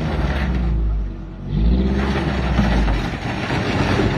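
SUV engine revved hard twice, the pitch rising and falling each time, as the tipped-over vehicle's wheels spin against the sandstone.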